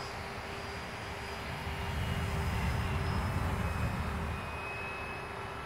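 Radio-controlled model Corsair flying overhead, its motor and propeller making a steady drone. It grows louder about two seconds in as it passes, then fades again.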